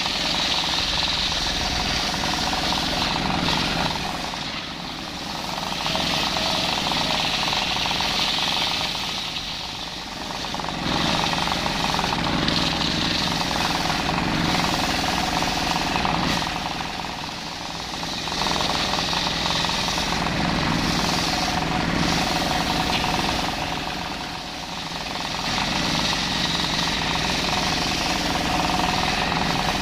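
Machine circular saw cutting rafter timber, running loud and steady under load. It eases off briefly about every six or seven seconds, four times, between passes.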